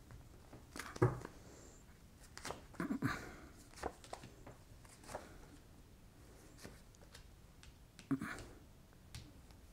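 Tarot cards being handled and laid out on a cloth-covered table: a few soft slaps and rustles of cards, the loudest about a second in, a small cluster around three seconds in, and another near the end.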